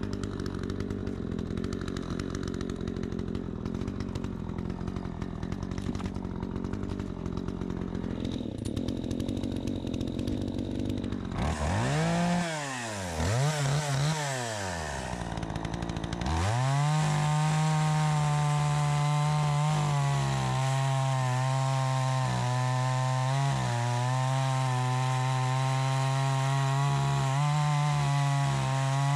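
Troy-Bilt 20-inch two-stroke chainsaw, its carburetor freshly adjusted, running at low speed, then revved up and dropped back twice about twelve seconds in. From about sixteen seconds it is held at high speed, steady with small dips in pitch.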